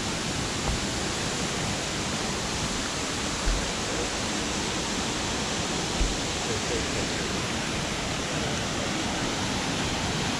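Steady rushing of a waterfall, with three short, low thumps about a second in, in the middle and just past halfway.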